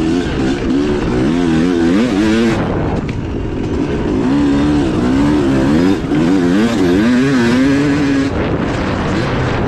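Yamaha YZ250 two-stroke single-cylinder motocross engine, heard from on the bike, revving up and down in quick rises and falls as the throttle is worked. The revs drop off briefly about two and a half seconds in and again near the end.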